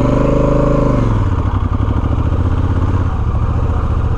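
Adventure motorcycle engine revving up and easing back in about the first second, then running at a low, steady speed as it pulls slowly through snow.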